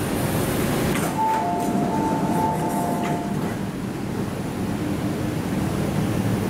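Train doors and platform screen doors of an MTR IKK-train opening: a clunk about a second in, then a two-tone chime alternating for about two seconds, with a second clunk near three seconds. A steady low rumble of the stopped train and station runs underneath.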